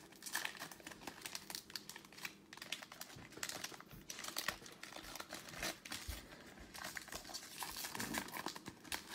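Foil wrapper of a Panini Prizm football card pack crinkling and tearing as it is ripped open and peeled back by hand, an irregular run of crackles.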